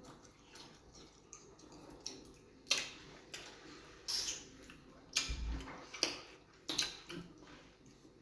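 Close-up mouth sounds of eating fufu with groundnut soup: a string of wet clicks and smacks, about half a dozen, spaced roughly a second apart.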